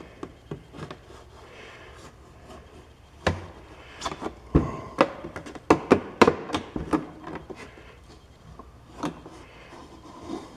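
An empty plastic jug being cut open and handled: irregular knocks, clicks and scraping of the plastic, mostly in a cluster a few seconds in.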